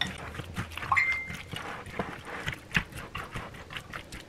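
A silicone spatula stirring a thick, creamy chicken and vegetable filling in a glass mixing bowl: irregular wet squelches and clicks as it scrapes against the glass. There is a brief high squeak about a second in.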